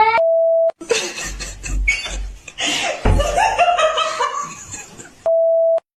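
A short, steady electronic beep cutting off sharply, then about four seconds of jumbled noisy sound with laughter-like voices, then the same beep again near the end.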